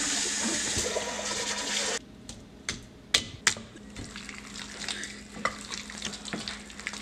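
Cooking oil pouring in a stream from a spouted box into a cast iron skillet for about two seconds, cut off suddenly. Then hands pressing and rubbing raw chicken pieces in a glass bowl of crumb coating, with soft scattered rustling and crackling.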